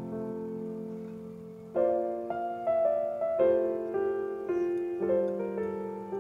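Background piano music: held notes and chords, with a louder phrase of newly struck notes beginning about two seconds in.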